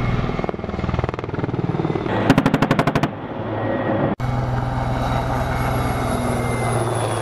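Denel Rooivalk attack helicopter's rotor and turbine engines running in flight, a fast pulsing rotor thrum. About two seconds in comes a burst of rapid gunfire, roughly a dozen shots in under a second. Just after four seconds the sound breaks off for an instant, then the rotor thrum goes on steadily with a high turbine whine slowly falling in pitch.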